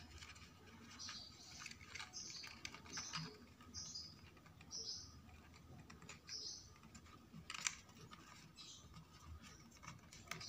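Quiet handling of a thin printed card papercraft part as it is folded and pressed into shape: soft paper crinkles and small clicks and taps. Behind it, a faint short high-pitched chirp comes about once a second.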